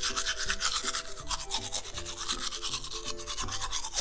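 Plastic toy toothbrush scrubbing quickly back and forth over modelling-clay teeth, a fast steady rasping rhythm, over light background music.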